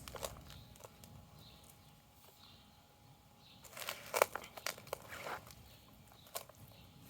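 Hands digging through soaked potato-bed soil: scattered crackles and rustles, busiest about four to five seconds in.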